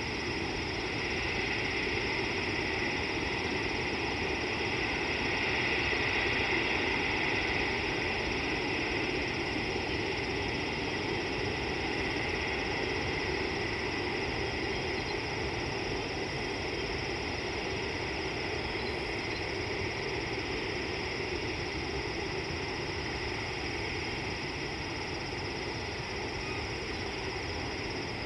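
Steady outdoor background hiss with no distinct calls, splashes or other events; a high band of it swells slightly about six seconds in.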